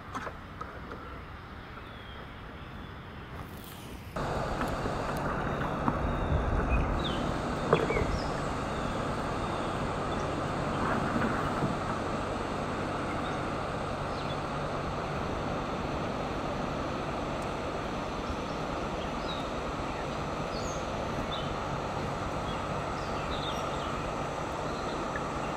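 Steady rushing of the Vloman Kill falls upstream, starting abruptly about four seconds in, with faint bird chirps over it and a few low thumps a few seconds after it starts.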